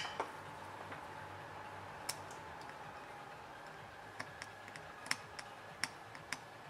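Light, sharp clicks and ticks from a soldering iron tip and fingers working on a small printed circuit board, a few scattered at first and closer together in the second half, over a faint steady hum.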